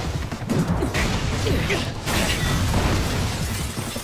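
Fight-scene sound effects from an anime soundtrack: a dense, loud mix of mechanical whirring and rattling with whooshes, over background music.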